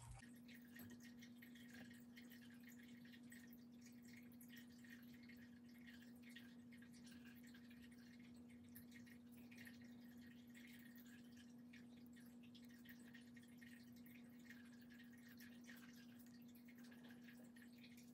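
Near silence, with a faint steady hum on one low note.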